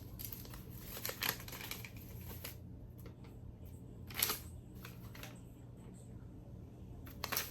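Faint handling of cardboard and paper packaging: scattered light rustles and taps, a little louder about a second in and again about four seconds in.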